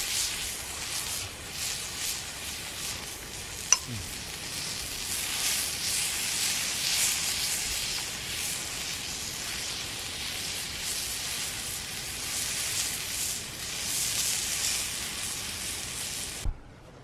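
Beef steak sizzling and crackling on a cast-iron griddle plate over a charcoal grill. A single sharp click comes about four seconds in.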